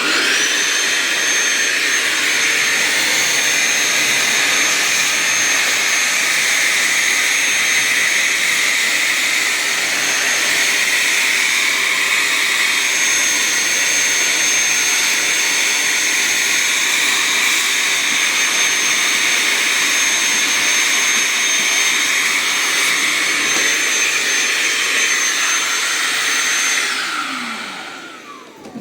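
DeWalt 20-volt cordless handheld vacuum running steadily at full speed with a constant high whine, then switched off near the end, its motor winding down.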